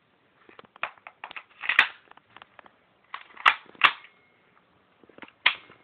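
Sharp mechanical clicks and clacks as the parts of a KWA MP9 airsoft gun are handled and worked. The loudest come about two seconds in and as a close pair a little past the middle, with lighter ticks between.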